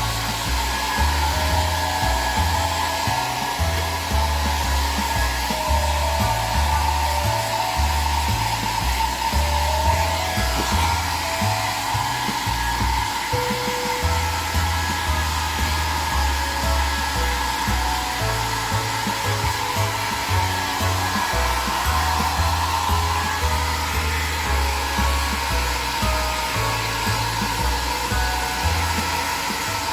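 Hair dryer blowing steadily and continuously, with background music playing under it.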